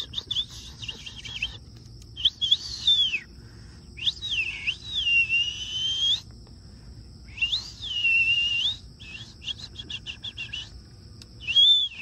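Bird-like whistling: bouts of quick high chirps and longer whistles that glide up and fall away, about four or five bouts in all, over a faint steady high drone.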